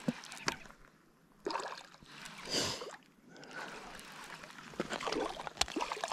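A hooked smallmouth bass splashing and thrashing at the water's surface as it is reeled in, the biggest splash about two and a half seconds in, with scattered sharp clicks toward the end.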